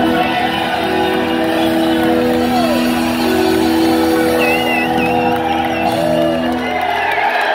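Live rock band holding its final chord on electric guitars and bass, with audience whoops and whistles over it. The chord cuts out near the end as the song finishes.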